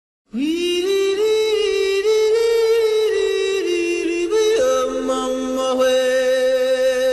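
Long held vocal notes, sliding up at the start, then dropping to a lower, steadier pitch about four and a half seconds in.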